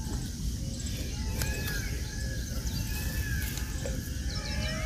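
Several birds calling with many short, repeated chirps, over a steady low rumble.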